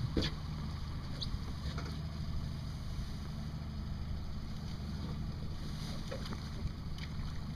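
Boat's outboard motor idling with a steady low hum, with a few faint light clicks of gear being handled.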